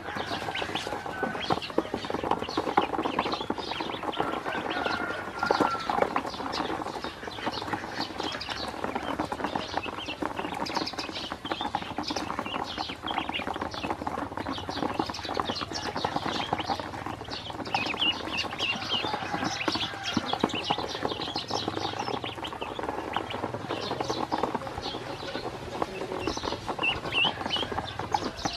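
A group of ducklings peeping constantly in short, high chirps, with many small clicks from them moving and pecking in a plastic tub.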